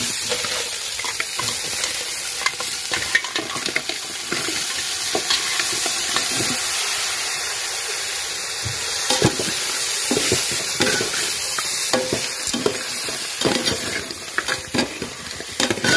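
Onion-tomato masala sizzling in a large metal pot as cleaned raw crabs go in, with clacks of a metal slotted spoon against the pot from about halfway as the crabs are stirred.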